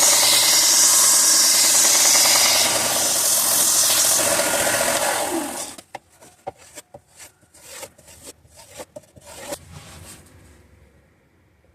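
A loud, steady rushing noise that stops about six seconds in, its pitch falling as it ends. After it come a few seconds of scattered rubbing and tapping sounds.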